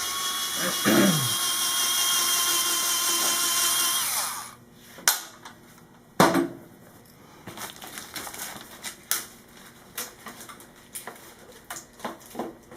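Electric ratchet running for about four seconds, backing out the long bolt that holds a motorcycle's stock chain adjuster. It is followed by two sharp metal clicks and a few lighter taps.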